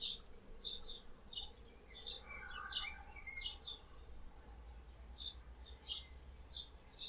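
Small birds chirping in trees: short, high chirps repeating about twice a second, with a lower twittering call from another bird between about two and three seconds in. A faint low rumble sits underneath.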